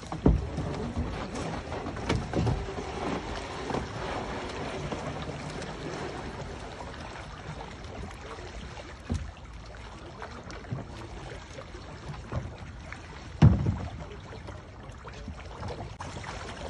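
Handling knocks and thumps on a wooden pontoon around a barrel of live trout, over a steady hiss of water and wind. There are scattered thumps, and the heaviest comes about thirteen seconds in.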